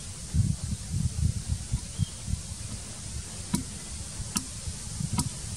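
Outdoor ambience with a steady high insect drone and uneven low rumbling thumps in the first half, then three sharp ticks about 0.8 s apart in the second half.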